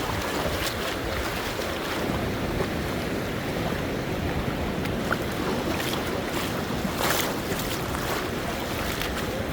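Sea waves washing, with wind buffeting the microphone in a steady low rumble and a gust or splash about seven seconds in.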